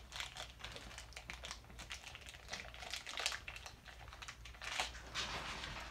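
Small plastic blind-bag wrapper crinkling and crackling as it is worked and torn open by hand: a faint, irregular run of crackles.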